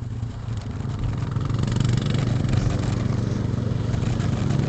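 Two dirt bikes' engines running as the bikes race across a frozen lake. The sound grows louder over the first couple of seconds and then holds steady.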